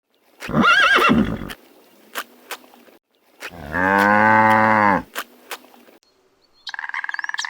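A horse whinnies briefly, then a cow gives one long, steady moo. Near the end a rapid pulsing animal call begins.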